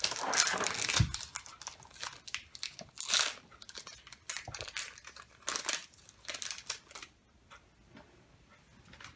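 Foil Pokémon trading card booster pack being torn open and its wrapper crinkled, in a string of sharp rips and rustles, loudest in the first second with a dull thump about a second in; it goes much quieter after about seven seconds.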